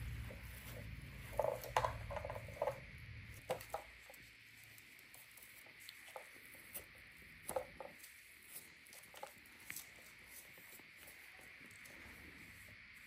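Faint, scattered light taps and pats of a baby monkey's hands and feet on the floor and a baby chair as it crawls and climbs, in a quick cluster a second or two in and a few single taps later.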